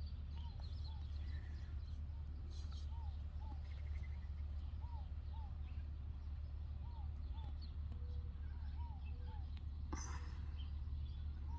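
An unidentified bird calling repeatedly, a pair of short, low, arching notes every couple of seconds, over a steady low hum.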